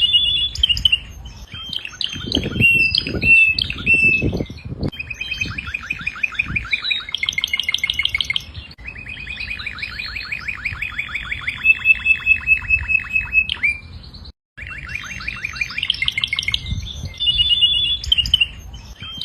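Domestic canary singing a long song of fast trills and rolling runs of rapidly repeated notes, some high and whistled, with a few low thuds about two to four seconds in. The song breaks off in a moment of silence near fourteen seconds, then starts again.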